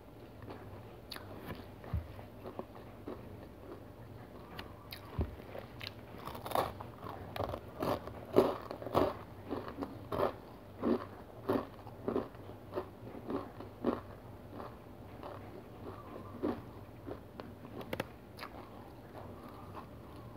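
A crunchy black sesame whole grain cereal bar being bitten and chewed: a run of sharp crunches, about two a second, loudest through the middle, sparser and fainter at the start and end.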